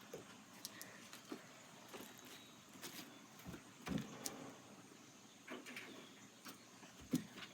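Faint handling noises from water-filled balloons being handled: scattered light clicks and taps, with a few short squeaks about at the start, near the middle and near the end.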